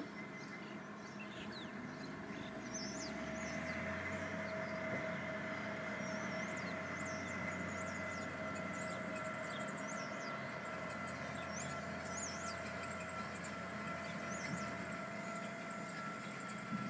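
Steady mechanical hum from dock operations, made of several unchanging tones, with a low drone that swells in about three seconds in and fades near the end. Birds chirp over it throughout.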